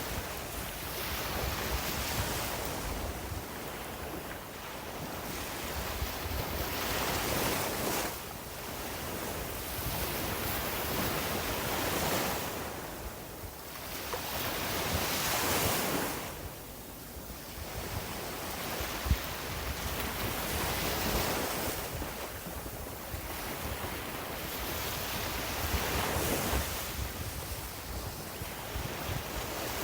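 Sea waves breaking and washing up on a beach, the surf swelling and falling back every few seconds, with wind buffeting the microphone. A single short sharp tap sounds about two-thirds of the way in.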